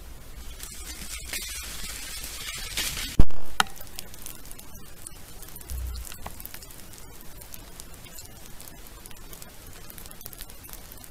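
Trail-camera recording of wild boar moving through the woods: a faint hiss with scattered rustling and crackling, broken about three seconds in by a single sharp click, the loudest sound.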